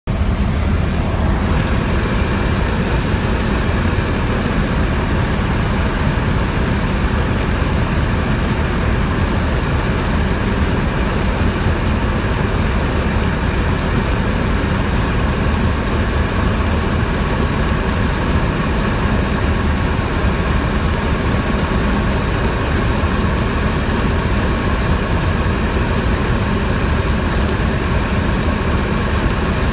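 Steady drone of a 1961 Cessna 182's six-cylinder engine and propeller, with airflow noise, heard from inside the cabin while lined up on approach to a runway.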